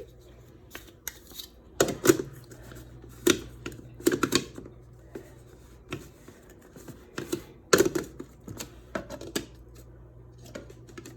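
Irregular sharp clicks and knocks of kitchen utensils and a container as cubed raw chicken is minced, over a steady low hum.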